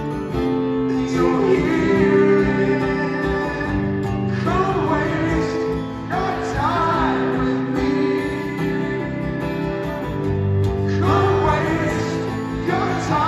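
Live arena music: two acoustic guitars playing a slow song through the PA, with singing voices wavering over them in two stretches, about a third of the way in and again near the end.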